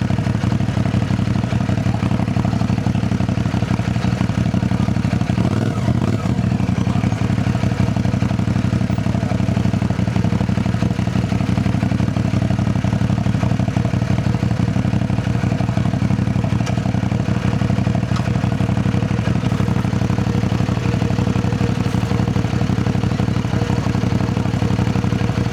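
CFMoto 450NK motorcycle's parallel-twin engine running at a steady speed, its pitch holding level without revving.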